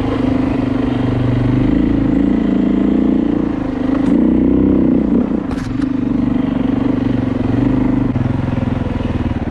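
Beta dirt bike engine running steadily as the bike climbs single-track trail, its note rising and falling a little with the throttle. A couple of brief clicks come about four and five and a half seconds in.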